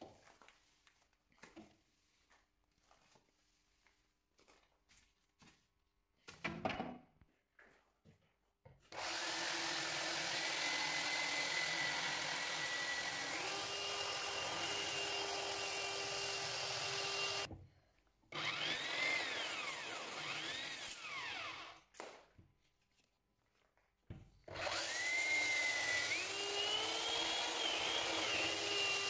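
Handheld electric belt sander sanding a wood-and-epoxy tabletop, run in three stretches: its motor whines up in pitch as it spins up and drops away when switched off. Before it starts, several seconds of faint clicks and handling knocks.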